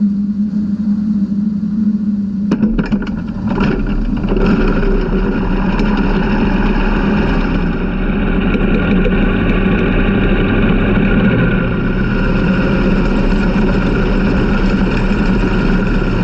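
360 sprint car engines running: a steady idle-like drone at first, then from about three seconds in a louder, fuller engine sound that holds steady.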